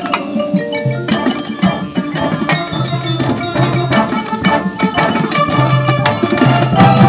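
High school marching band playing its field show. Percussion and mallet keyboards are prominent over sustained low notes, with many sharp drum and mallet strikes, and the full band grows louder again near the end.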